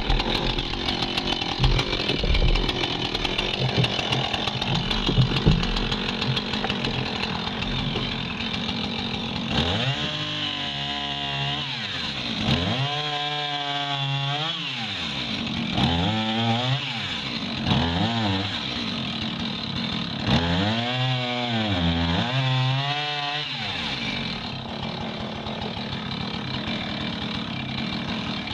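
Husqvarna Rancher two-stroke chainsaw running at high throttle, cutting jammed logs. Through the middle its engine pitch rises and falls over and over, every second or two.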